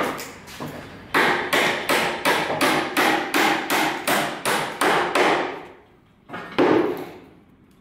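Hammer striking, nailing the corner of a wooden formwork (shuttering) box: a run of about a dozen quick blows, about three a second, then after a short pause one last louder blow near the end.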